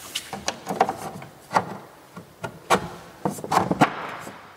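Wooden dividers being fitted into a Hafele pegboard drawer base among stainless steel pots and pans: a string of irregular sharp wooden knocks and clicks with light rubbing between them.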